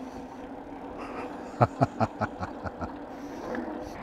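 A steady low hum of riding on an e-bike, with a quick run of about six knocks about a second and a half in, each fainter than the last.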